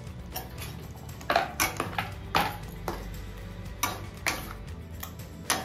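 Metal spatula scraping and knocking against a stainless-steel kadai while stirring thick spinach gravy with paneer cubes: irregular clinks and scrapes, about eight in all, some in quick clusters.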